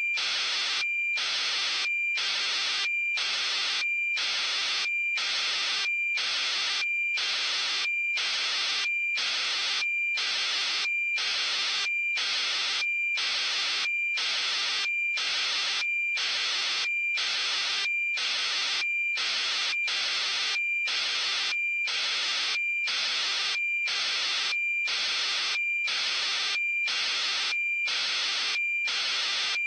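Electronic static pulsing on and off about twice a second at an even rate, with a steady high-pitched whine running through it.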